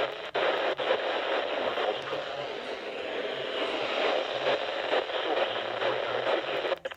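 Steady static hiss from a radio receiver on a weak signal, all but drowning the broadcast voice that is reading a severe thunderstorm warning, which is left as a faint, garbled trace under the noise.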